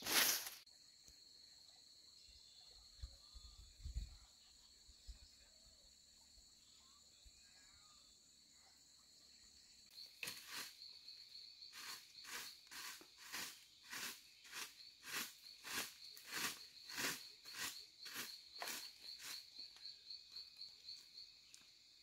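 Twig broom sweeping leaves and dirt on a path: a couple of strokes at the very start, then from about ten seconds in short regular swishes about two a second. A steady high-pitched insect trill runs underneath.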